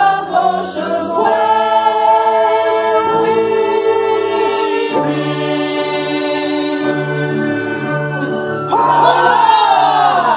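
Mixed amateur chorus holding long sustained chords, changing chord a few times. About nine seconds in the voices rise into a loud cry that slides down in pitch.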